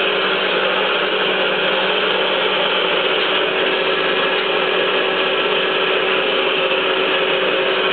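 Hydraulic pump of a 3B71M surface grinder running under a hydraulics test, a steady, unbroken mechanical hum.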